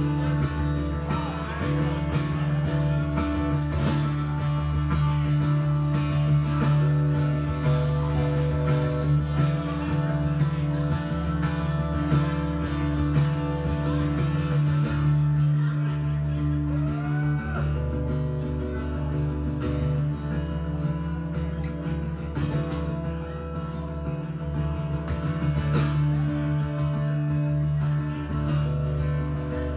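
Live guitar music: an instrumental break in a country song, with strummed chords and held notes and no singing.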